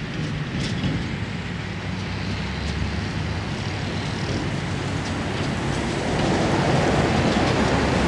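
A John Deere self-propelled forage harvester chopping corn for silage: its diesel engine and cutterhead run steadily while it blows the chopped corn into a truck alongside. The noise grows louder about six seconds in.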